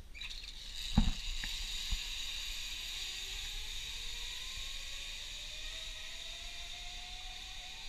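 Zipline trolley pulley running along a taut steel cable as a rider launches: a thump about a second in, then a steady hiss with a thin whine that rises slowly in pitch.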